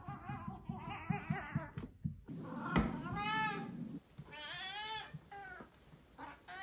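Domestic cat meowing: one long, wavering meow in the first two seconds, then a string of short meows, with a thump just before the first short one.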